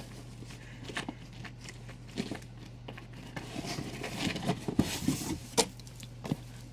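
Comic books and their paper and plastic being handled and shuffled: soft rustles and light taps, a little busier about two-thirds of the way in, over a steady low hum.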